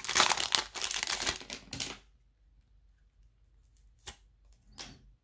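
Clear plastic wrapper crinkling and rustling as it is pulled off a deck of trading cards, stopping about two seconds in. Then two short, faint clicks as the cards are handled.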